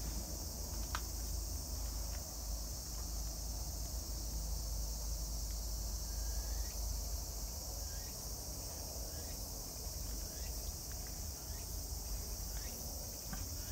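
A steady, high-pitched insect chorus, over a low background rumble.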